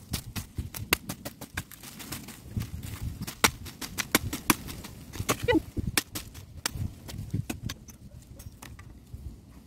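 Machete chopping a thin dry branch held upright: a fast, irregular run of sharp whacks, several a second, as the blade hacks at the wood.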